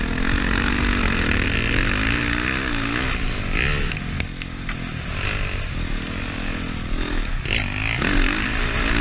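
Dirt bike engine heard from a helmet-mounted camera, its revs rising and falling over and over as the bike accelerates and shifts round a motocross track, with a steady rush of noise underneath.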